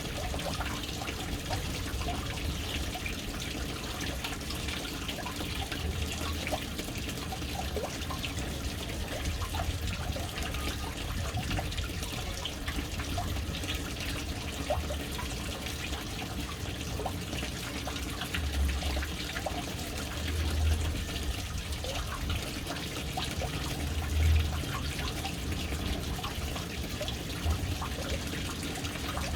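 Water falling into a household water tank from its float-valve inlet, a steady splashing trickle with many small drips. A few deeper surges swell up about two-thirds of the way through.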